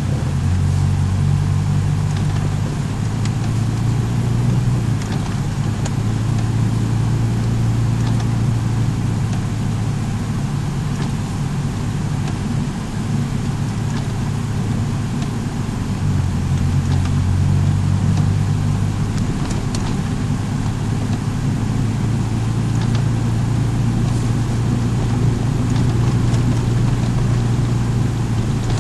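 A car's engine and road noise while driving: a steady low hum whose pitch shifts partway through, over a constant rushing haze, with a few faint clicks.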